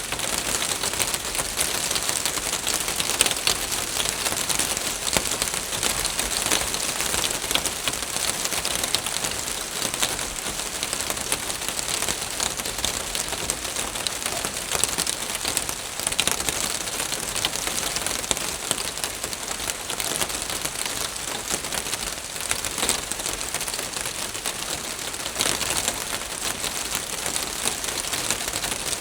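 Rain falling steadily on a roof: a dense, even patter of many fine drop ticks.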